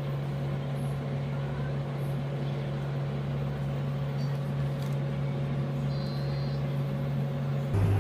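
A steady low machine hum made of a few fixed tones, the kind an appliance motor or fan gives; near the end it shifts abruptly to a lower, louder hum.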